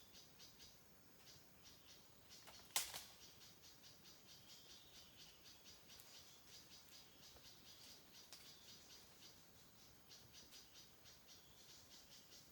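Faint rainforest animal chorus: rapid, evenly repeated high chirps. A single sharp knock about three seconds in.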